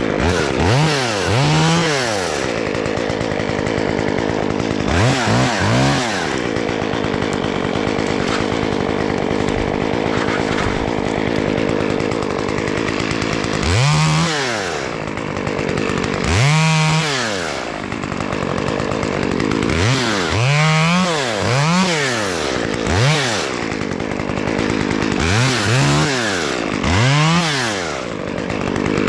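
Chainsaw running at idle, revved up and back down again and again, in short revs and longer runs of several in a row.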